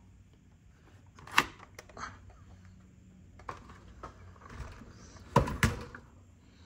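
Handling noise from a chainsaw that is not running: a few scattered clicks and knocks of its plastic housing and parts being turned over, the loudest a quick double knock near the end.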